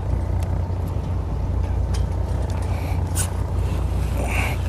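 Fishing boat's engine running steadily: a low, even drone, with a few faint ticks over it.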